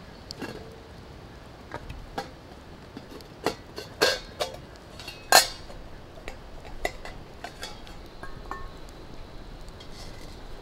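Metal camp cooking pot clinking and knocking as it is handled at a campfire: a scatter of sharp metallic clinks, the loudest about five and a half seconds in.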